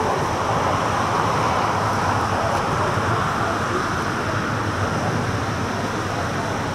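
Steady road traffic noise, a continuous rush of passing tyres and engines that eases slightly in the second half.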